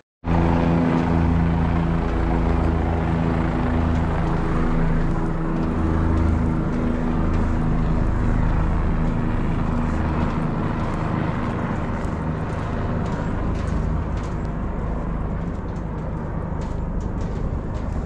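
A steady engine drone with a low, pulsing hum over a hiss. It starts abruptly and slowly fades.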